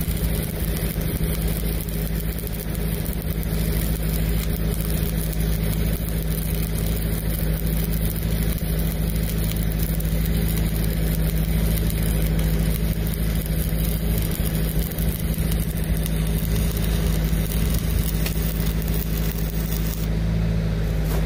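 Lincoln Pipeliner 200D engine-driven welder's diesel engine running steadily under load, with the sizzle of a stick-welding arc laying an uphill weave bead on pipe.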